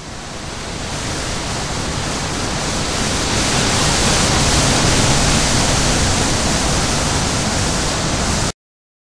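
Steady rushing noise with no pitch, like loud static, swelling up gradually over the first few seconds, holding steady, then cutting off abruptly near the end.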